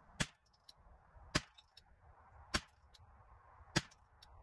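Ruger 10/22 semi-automatic .22LR rifle with a Shilen barrel fired four times at a steady pace, about one shot every 1.2 seconds, with faint ticks between the shots.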